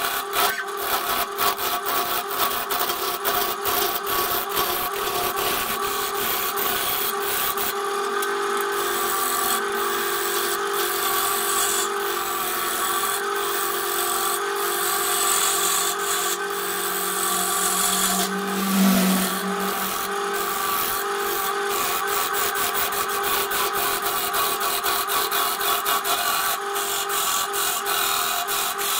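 BURT wood lathe running while a gouge cuts into a spinning wooden blank: a steady hissing, scraping cut over the motor's even whine, with rapid ticking from the tool edge on the wood. A brief low hum swells about two-thirds of the way through.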